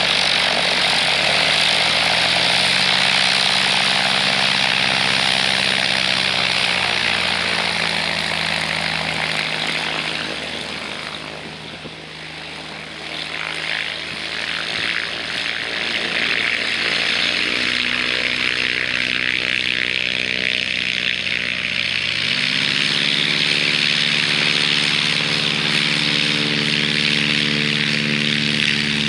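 Cessna 172's piston engine and propeller running at taxi power. Near the middle the engine note drops and softens. About three quarters of the way through it rises in pitch and loudness as engine speed is raised.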